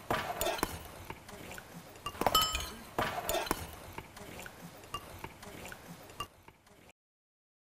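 Metal spoons clinking against soup bowls as several people eat at a shared table: scattered sharp clinks, some with a short ring, the loudest a little over two seconds in. The sound fades and cuts to silence near the end.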